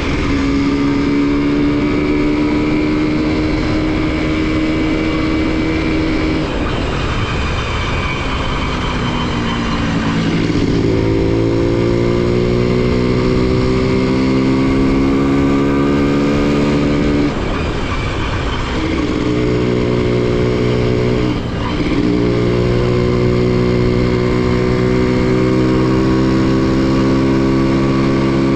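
Honda CDI-100 motorcycle's single-cylinder four-stroke engine and exhaust running at a steady engine speed. Its pitch dips and climbs back about a third of the way in, and it breaks briefly twice later on.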